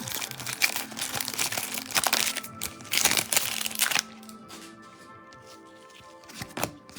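Foil wrapper of a Donruss football trading-card pack crinkling as it is torn open and handled, for about four seconds, over background music. It then drops to the music alone, with a few sharp clicks near the end.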